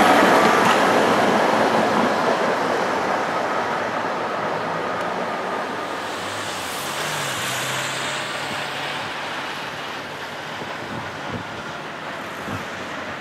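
Tatra tram passing close by and fading steadily as it runs off along the street track, its running noise giving way to quieter street traffic.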